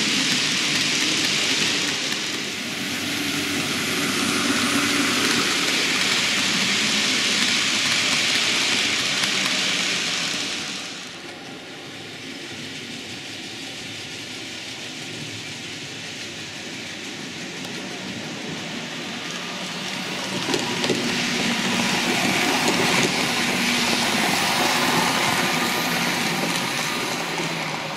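TT-scale model trains running on the layout's track: a steady rushing noise of small wheels rolling over the rails with a faint motor hum. It is loud at first, drops at about eleven seconds, and builds again from about twenty seconds as another train comes nearer.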